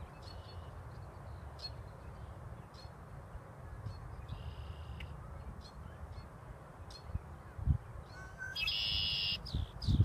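Red-winged blackbird song: short high chip notes every second or so, a fainter buzzy trill about four seconds in, and near the end the loudest song, a short rising note followed by a harsh, buzzy trill of about a second (the 'conk-la-ree').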